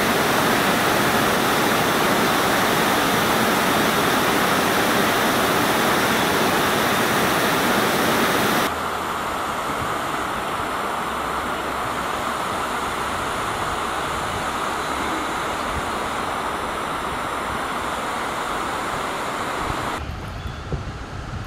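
Steady loud rush of falling water from the Vloman Kill falls. It cuts off abruptly about nine seconds in to a quieter, even water-and-outdoor hiss. Near the end, low rumbling wind buffets the microphone.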